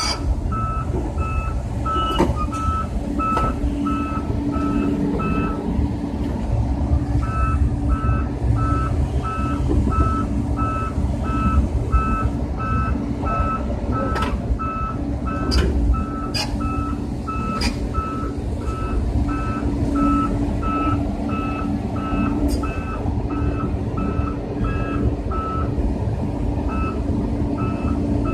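Volvo EC210 excavator's travel alarm beeping about twice a second, with a short pause about six seconds in, over the steady running of its diesel engine, heard from inside the cab as the machine tracks along. A steady hum sets in after a couple of seconds, and a few sharp clicks stand out.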